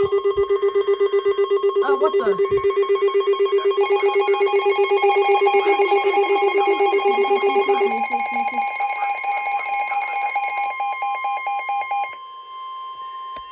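Electronic emergency alert tones before a weather warning broadcast: several steady pitches pulsing rapidly together like a ringing bell, the lowest dropping out about eight seconds in. The pulsing stops about twelve seconds in, leaving one steady high alert tone sounding on its own.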